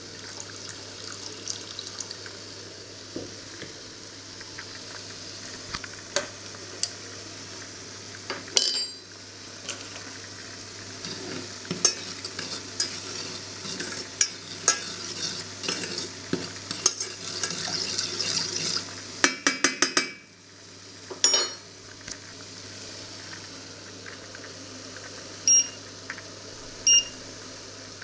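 Spoon stirring and clinking in a small stainless steel saucepan while sugar and rosé wine sizzle and bubble on an induction hob, with a quick run of metal taps about two-thirds of the way through. Near the end, two short beeps from the induction hob's touch controls.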